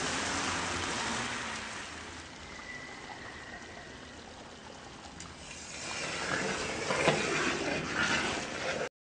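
Lentils sizzling in a hot karahi while a thick white liquid is poured in, then a spatula stirring and scraping through the dal against the metal pan, with a couple of sharper knocks near the end.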